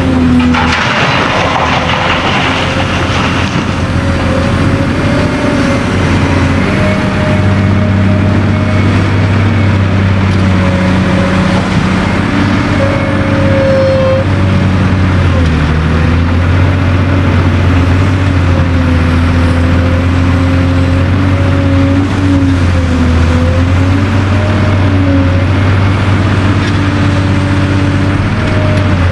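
Caterpillar 385C LME excavator's diesel engine running under working load, its pitch wavering and shifting as the hydraulics take and release load. A rough, noisy burst, like material being worked, sits over it in the first three seconds.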